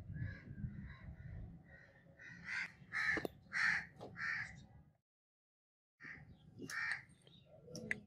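A bird calling repeatedly: fainter calls at first, then four loud calls about half a second apart, and two more after a short break.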